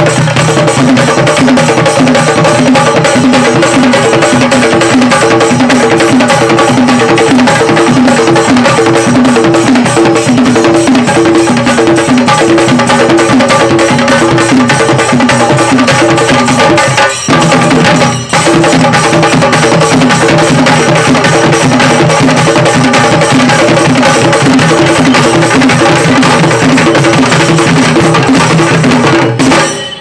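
A group of Kerala chenda drums beaten fast with sticks in a chenda melam ensemble, a dense, continuous, very loud drumming. It breaks off briefly twice in the middle and stops just before the end.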